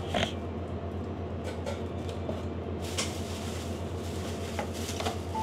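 Checkout-counter background: a steady low hum with a few light clicks and plastic rustles as a cashier packs items into a plastic shopping bag.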